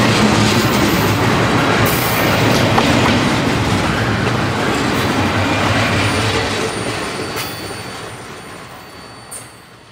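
Double-stack intermodal freight train's well cars rolling past on jointed track, wheels clattering with a thin high wheel squeal. The sound holds steady, then fades from about six seconds in as the last car goes by and away, with a brief sharp high sound near the end.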